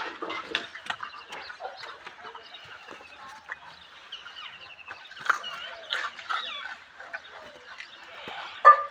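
Short chirping and trilled animal calls repeating, with scattered clicks and rustles, and one loud short call near the end.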